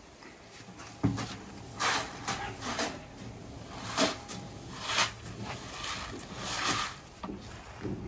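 Dry granular calf feed being scooped into a plastic bucket inside a metal feed cart: a series of short rustling, scraping scoops about a second apart, with a few sharp knocks of the bucket against the cart.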